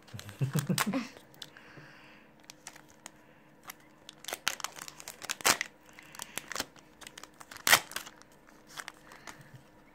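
Foil wrapper of a Yu-Gi-Oh booster pack being torn open and crinkled by hand, with scattered crackles and a few sharp, loud ones in the second half.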